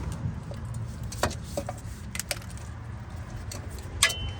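A few sharp metallic clinks and clicks as a tool is fitted and adjusted on the oil filter before it is unscrewed, over a steady low hum.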